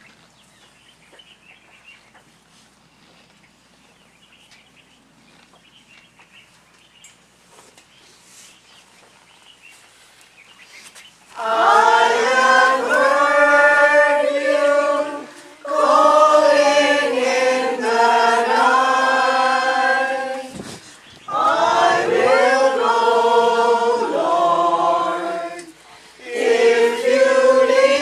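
Faint background for the first ten seconds or so, then a group of voices singing a hymn in phrases, with short breaks between the lines.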